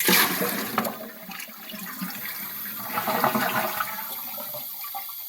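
Glacier Bay toilet flushing: a sudden rush of water emptying the tank into the bowl, with gurgling about three seconds in, easing to a steadier hiss near the end. The fill valve is partly blocked, so the tank refills slowly after the flush.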